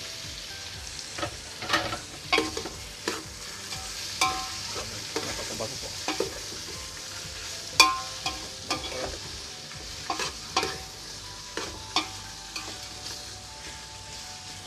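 Beef skin with ginger and onion sizzling in a metal pot as a metal spatula stirs it, knocking and scraping against the pot in short clanks every second or so, some of them ringing briefly; the loudest clank comes about eight seconds in.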